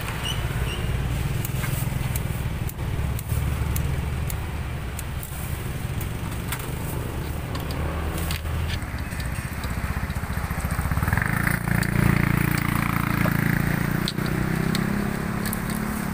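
A motor vehicle engine running with a steady low rumble, growing louder about eleven seconds in.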